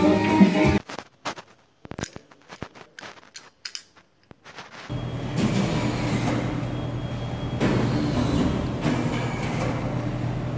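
Music cuts off under a second in, leaving a few faint scattered clicks. From about five seconds in, a steady low hum with a noisy background runs on, with a few knocks as a sheet of drywall is handled.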